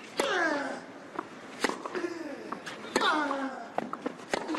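Tennis rally on a clay court: four racket-on-ball strikes about a second and a half apart, with a loud grunt falling in pitch on the first and third hits. Lighter ticks of the ball bouncing come between the hits.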